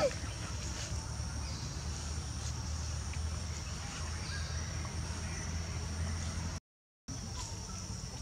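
Steady outdoor background with a low hum and a faint high-pitched drone, with a few faint ticks. The sound cuts out for about half a second roughly two-thirds of the way in.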